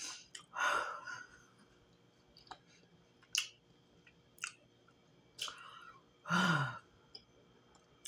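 A person chewing with closed lips and sighing: a breathy sigh about a second in, a few soft wet mouth clicks as she chews, and a longer sigh with a low falling hum near the end.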